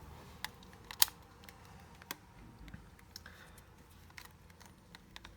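Sony Handycam DCR-HC17 Mini DV camcorder being handled: a few sharp, scattered plastic clicks, the loudest about a second in.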